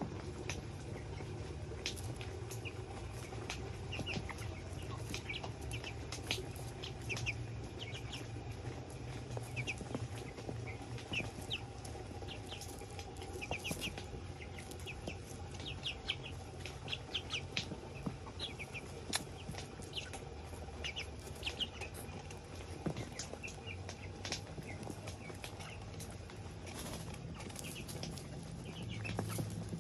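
A flock of white broiler chickens making soft clucks and many short, high peeps scattered throughout.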